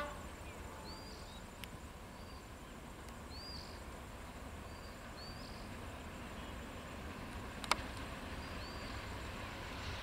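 Small birds giving short, repeated chirps over a low, steady rumble from a distant diesel passenger train approaching, the rumble growing slightly louder toward the end. A single sharp click sounds about three-quarters of the way through.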